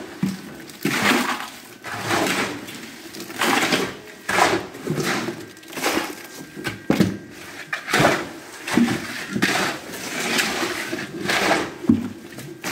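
Steel shovels scraping through wet concrete topping mix on a concrete floor and scooping it into buckets, in repeated gritty strokes about once a second.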